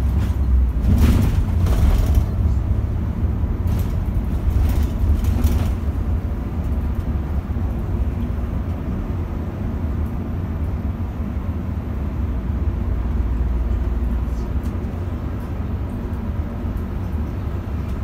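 Solaris Urbino 15 city bus heard from inside its cabin while driving: a steady low engine and road rumble, with a few short rattles in the first six seconds. The deepest part of the rumble eases slightly near the end.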